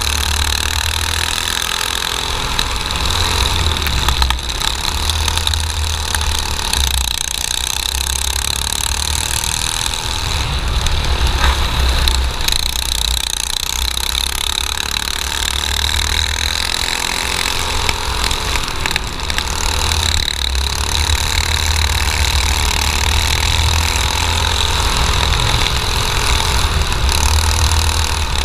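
Dirt kart engine running steadily at racing speed, heard from on board the kart, with a heavy low rumble underneath.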